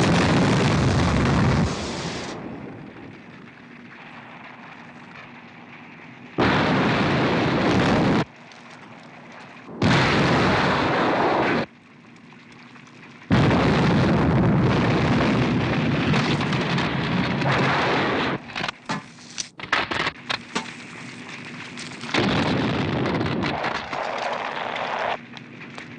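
Film sound effects of computer equipment blowing up and burning: several loud crackling, hissing blasts that cut in and out abruptly, with a faint steady low hum in the quieter gaps.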